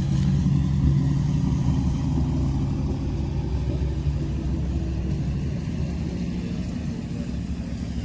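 Car engine running hard and revving as the car struggles to climb a snow-covered slope and cannot get up it. It is a loud, steady low rumble that eases off a little in the second half.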